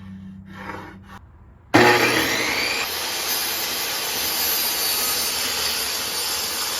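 A power tool switches on about two seconds in, its pitch rising briefly as it spins up, then runs steadily with a loud hiss.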